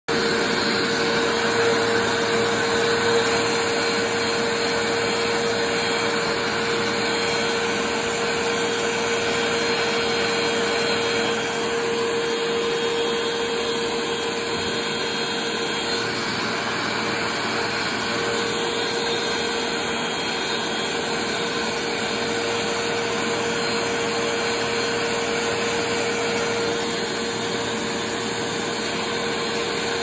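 Vacuum cleaner running steadily, its hose sucking dust off an air filter: an even rush of air with a steady motor tone.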